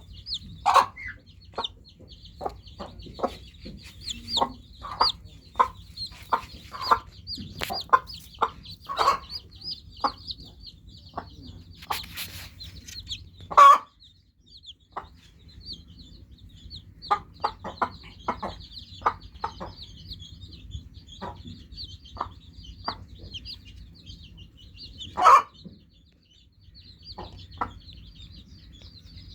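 A brood of newly hatched chicks peeping continuously, a dense high-pitched chatter, mixed with louder, lower short calls from chickens, often one or two a second, pausing briefly now and then. Three calls stand out as the loudest: about a second in, near the middle and near the end.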